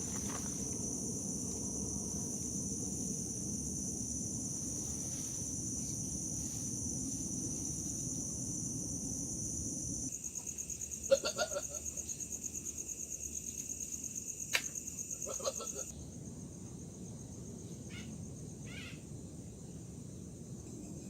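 Steady high-pitched chorus of crickets and other insects. It changes abruptly about ten seconds in to a fast pulsing trill and shifts again near sixteen seconds. A couple of short, louder call-like sounds and one sharp click come near the middle.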